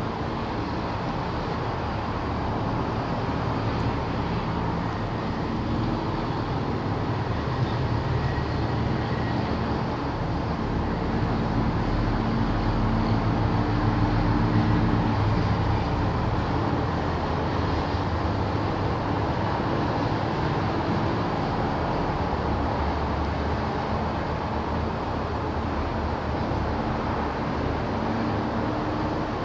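Steady drone of city traffic, with a low engine hum that grows a little louder around the middle.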